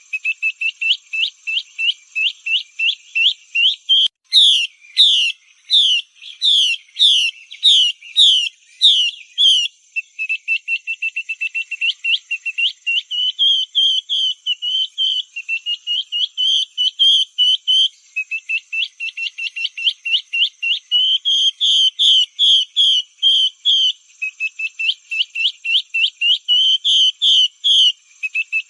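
Female Chinese hwamei calling: a long unbroken run of short, clear whistled notes, several a second, some passages faster and sharper than others. It is a lure call used to get male hwamei singing.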